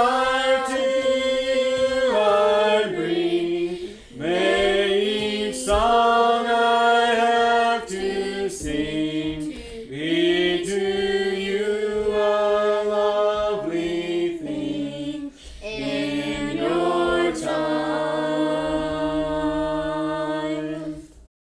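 A small family group of mixed voices, men, women and children, singing a hymn a cappella in parts, in long held phrases with brief breaths between them. The singing cuts off suddenly near the end.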